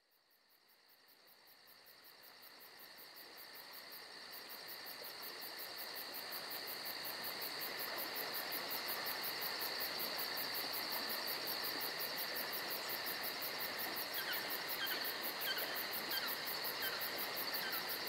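Fixed-media electronic music fading in over several seconds: a steady, high, cricket-like drone made of held tones over a hiss, with a fast, even pulse up high and a few faint chirps in the second half.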